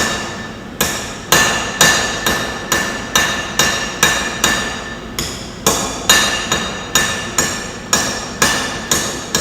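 Blacksmith's hammer striking hot iron on an anvil in a steady rhythm of about two to three blows a second, each blow ringing. The smith is drawing a square stem round by hammering its corners.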